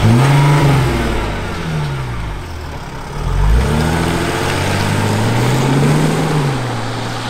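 Mercedes-Benz GLE 350d SUV accelerating and revving, its engine note climbing and falling in pitch several times, with a longer climb in the second half.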